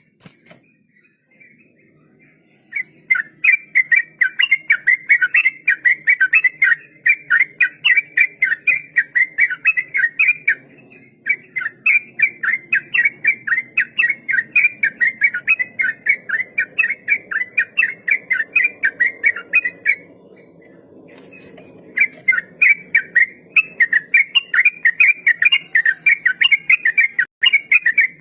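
Yellow-vented bulbul (trucukan) singing a long, rapid 'ropel' song: quick whistled notes repeated several times a second in long runs. The song starts after about three seconds and breaks off briefly twice.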